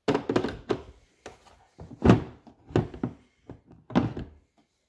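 Hard plastic knocks and thunks as an M12 battery pack and the PEX expansion tool are set into and lifted out of their molded plastic carry case, a string of separate knocks with the loudest about two seconds in.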